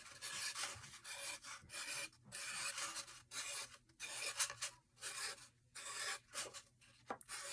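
Sharpie marker rubbing across a rain-stick tube as small ovals are drawn, a run of short scratchy strokes with brief pauses between them.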